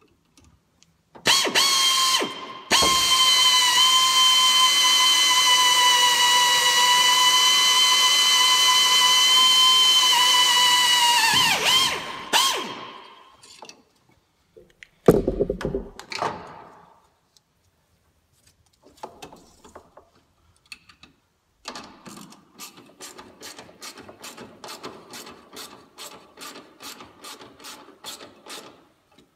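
Pneumatic air ratchet running with a steady high whine for about ten seconds, pausing briefly near the start, and winding down as it is let off. Later come short bursts, then a run of even ratchet-pawl clicks, about three a second, as the ratchet is worked back and forth.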